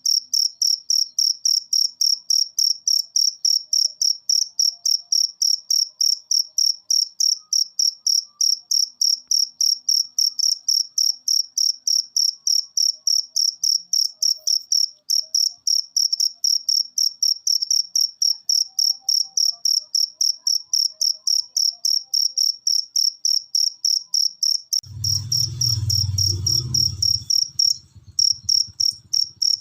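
Cricket chirping steadily, short high-pitched chirps repeated about four times a second. About 25 s in, a low rumble lasts a couple of seconds under the chirping.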